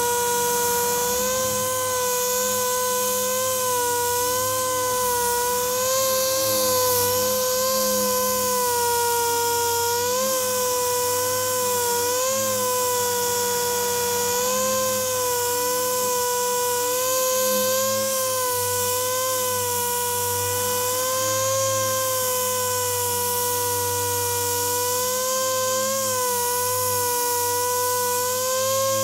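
Dynabrade 56826 6-inch air-powered random orbital sander running steadily while sanding body filler: a high whine that wavers slightly in pitch as the pad is pressed and moved, over a steady high hiss.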